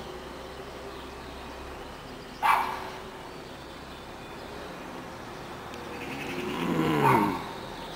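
A dog barks once, sharply. Near the end a vehicle passes, getting louder over a couple of seconds with its pitch falling, then fading quickly.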